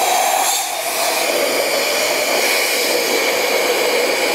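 Compressed air hissing steadily and loudly from an air nozzle blown into a cylinder head's exhaust port, with a faint tone that sinks slightly in pitch. It is a leak test of the exhaust valve seal, done with water standing in the combustion chamber to show any air that gets past the valve.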